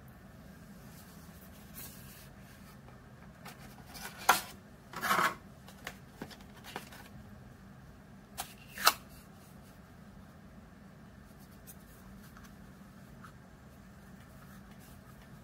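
Creative Outlier Air V2 earbud box and charging case being handled: a few sharp clicks and a short scraping rustle between about four and nine seconds in, over a faint steady hum.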